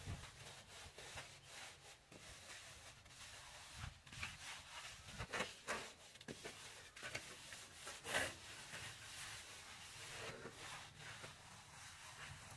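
Hand float rubbing and scraping over fresh cement plaster on a wall in irregular strokes, floating the surface smooth.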